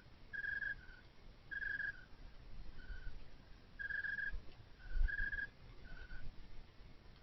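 A high two-note whistle repeating about once a second, each a longer higher note followed by a shorter, slightly lower one, over a low rumble.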